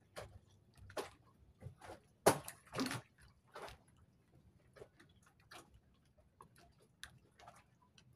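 Scattered small clicks and taps of hands working with fishing tackle and a caught fish, with two louder knocks a little over two seconds in.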